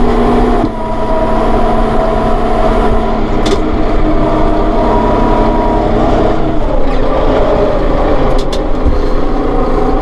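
Massey Ferguson 4610M tractor's diesel engine running steadily as the tractor drives and turns, heard from inside the cab, with a steady whine over it. The tone shifts a little about a second in and again about seven seconds in, and a few faint clicks come through.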